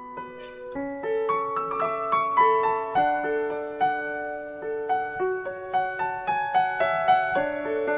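Background music: a gentle piano melody of single notes over held chords, at an even, unhurried pace.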